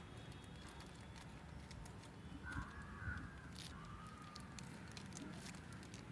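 Polythene bag crinkling with small scattered clicks as hands handle it and wrap it around a plant stem. A bird calls twice: a short call about halfway through, then a fainter one a second later.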